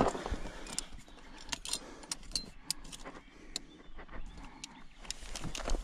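Scattered light clicks and rattles of fishing tackle, irregular, a few a second, while a hooked asp is played in close to the bank.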